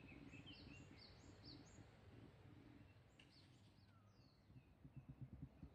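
Faint birdsong: short, high, downward-sliding chirps repeated in quick runs, over a low background rumble.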